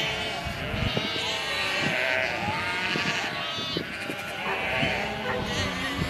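Sheep bleating, with several calls overlapping one another.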